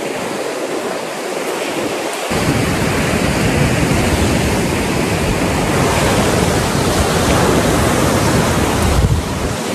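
Surf washing onto a sandy beach as a loud, steady rush. From about two seconds in, wind buffets the microphone with a low rumble.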